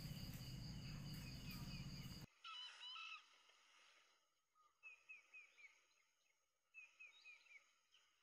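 Faint runs of short, falling peeps, about four at a time, from young golden pheasant chicks. A steady background hiss cuts off suddenly a couple of seconds in.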